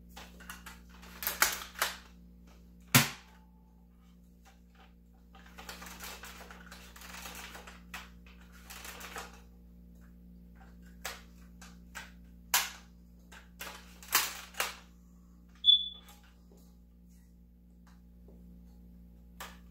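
Plastic clicks and snaps from a small toy dart blaster being handled and worked, with short stretches of rustling between them. The sharpest snap comes about three seconds in, and another loud one near sixteen seconds.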